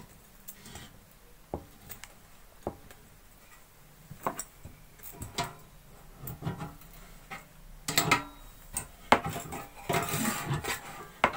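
Metal clinks and knocks of a spanner working a gas pipe's nut onto a gas stove's inlet fitting. They are sparse at first and come thick and fast in the last few seconds.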